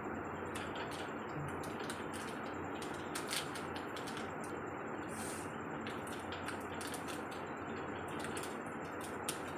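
Scattered small clicks and crinkles of a sweet wrapper being picked open by hand, over a steady background noise.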